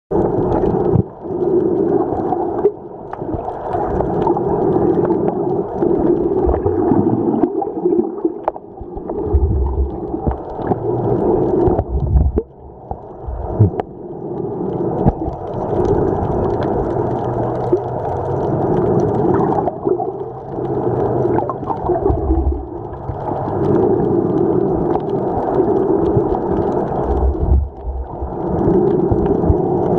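Muffled underwater sound picked up by a camera held below the surface: water sloshing and gurgling, swelling and fading every few seconds, with a few dull low thumps.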